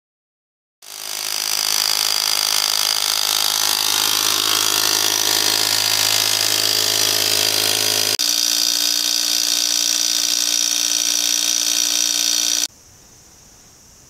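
Electric A/C vacuum pump starting up about a second in and running steadily while it evacuates the car's air-conditioning system after the leak test. Its tone changes abruptly about two-thirds of the way through, and it cuts off suddenly near the end.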